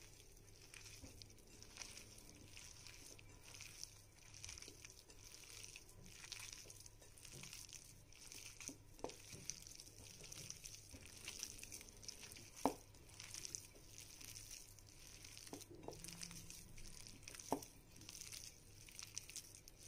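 Faint, soft squishing of wet, crumbly whole-wheat dough being kneaded by hand in a plate, with a few light clicks, the loudest about two-thirds of the way through.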